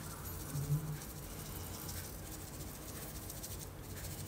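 Tapioca starch sifted through a small plastic mesh sieve onto a non-stick frying pan: a faint rustling patter of falling grains with light ticks as the sieve is tapped.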